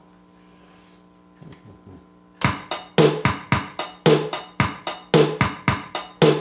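Casio Casiotone CT-360 electronic keyboard with a faint hum and a few soft clicks at first. About two and a half seconds in, its built-in drum-machine rhythm pattern starts, with beats about twice a second.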